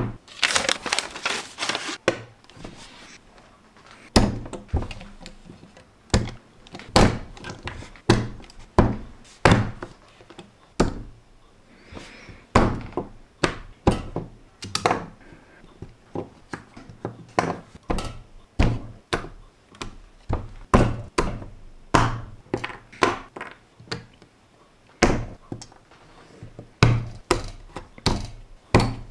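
Plastic LEGO bricks being pressed and knocked together with a fist against a tabletop: a long string of irregular sharp knocks, about one or two a second, with a quicker cluster of clicks in the first two seconds.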